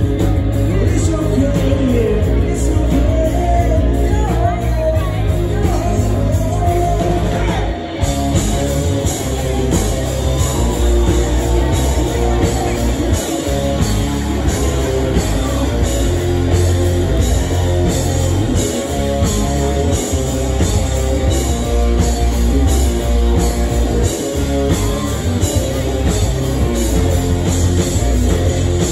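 Live rock band playing a song with singing, electric guitar and a steady drum beat, heard from the audience in the crowd; the music drops briefly about eight seconds in, then the full band carries on.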